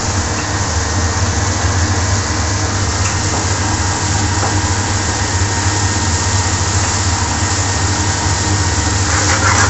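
Steady low machine hum with an even rushing noise over it, the constant background drone of a working commercial kitchen, such as its extraction and gas burners, with no break or change.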